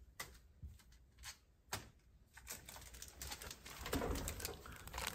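Faint scattered clicks and rustling from Pokémon trading cards and packs being handled, growing busier about halfway through.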